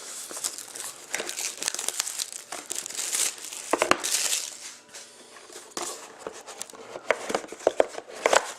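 Crinkling and rustling of plastic wrapping as a sealed trading-card box is handled, coming in irregular crackly spurts.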